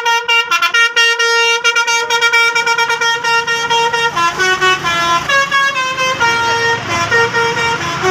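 Multi-tone telolet bus horn playing a quick melody of short notes that switch between pitches. A low engine rumble runs under it from about two and a half seconds in.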